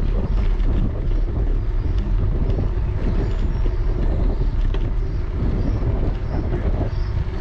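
Wind buffeting a GoPro HERO9 Black's microphone while riding a bicycle over asphalt, a heavy uneven low rumble, with a few faint clicks and rattles.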